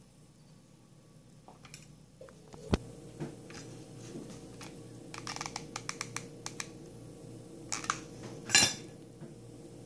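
Stiff starched-satin flower petals handled in the fingers: a sharp click a few seconds in, a run of small crinkling clicks, and a short loud rustle near the end.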